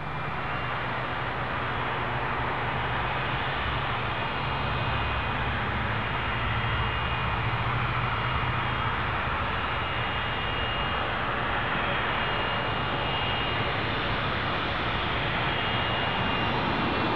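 Jet engines of a Boeing 757-200 taxiing at low power: a steady rushing noise with a faint high whine over it.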